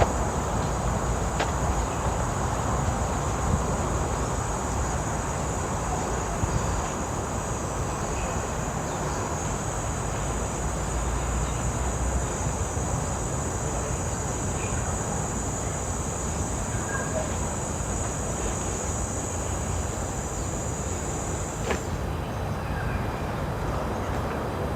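A high, steady insect drone that cuts off suddenly about three-quarters of the way through, over a steady low background rumble.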